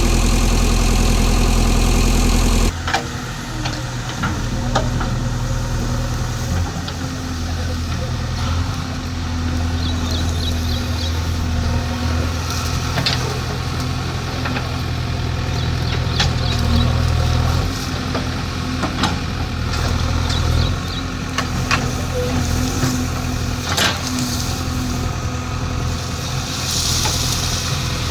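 Heavy diesel engine running steadily, its note changing abruptly about three seconds in, with scattered knocks and clanks over it and a hissing rush near the end.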